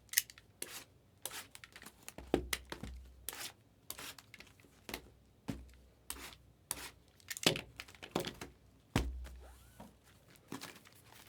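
Sealed trading-card hobby boxes being opened by hand: wrapping torn and crinkled in a string of short, irregular rips and knocks.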